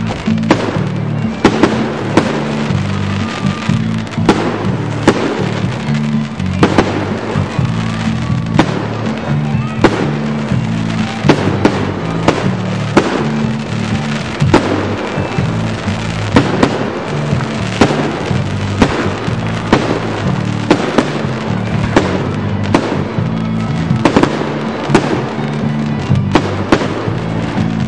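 Aerial firework shells bursting in quick succession, a sharp bang about every second with irregular spacing, over background music with a steady bass line.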